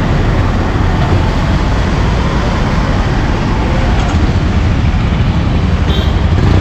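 Motorcycle engine running at low speed close by, with street traffic around: a steady low drone with no break.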